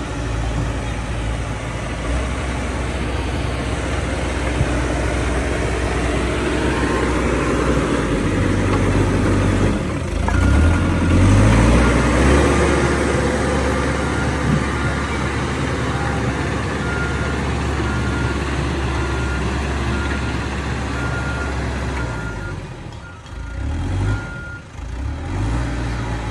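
Diesel engine of a Caterpillar 426F backhoe loader running under work, its engine speed stepping up about a third of the way in and dipping and picking up again near the end. A reversing alarm beeps at a steady rate through most of the middle.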